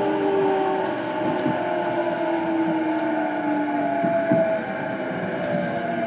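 Running sound inside an E233-series electric train's motor car: the traction motor and inverter whine slides slowly down in pitch as the train slows, over steady wheel and rail noise.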